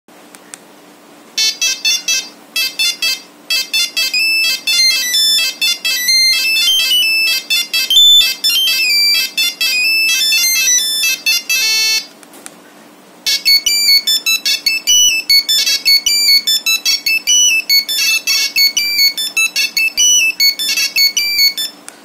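Nokia 3315 mobile phone playing monophonic ringtone previews through its small speaker: a fast melody of high beeping notes, a brief flurry of rapid beeps about twelve seconds in, then after a short pause a second, different ringtone melody.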